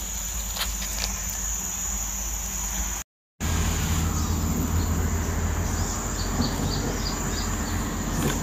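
Steady high-pitched drone of insects, cut by a brief dropout about three seconds in. After the dropout a low steady rumble joins, and a few faint short chirps are heard.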